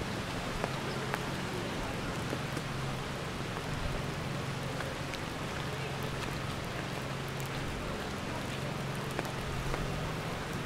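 Steady rain pattering, with scattered ticks of single drops, over a low steady hum.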